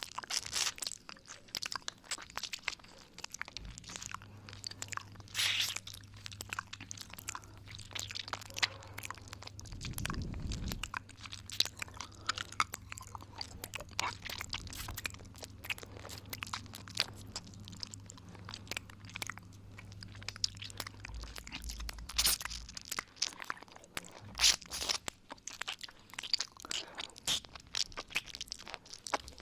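Close-up 'ear eating' mouth sounds for ASMR: a constant, irregular run of wet mouth clicks and smacks right at the microphone.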